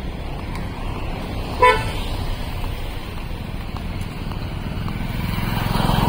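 A single short vehicle horn toot about a second and a half in, over the steady rumble of street traffic. Near the end an engine grows louder as a vehicle comes close.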